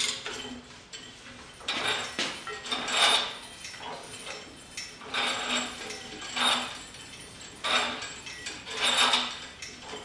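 Hand-cranked Harbor Freight tubing roller rolling a 1.5-inch chrome moly steel tube: a metallic rasp from the rollers and tube with each pull on the handwheel, coming in repeated swells about every one to one and a half seconds.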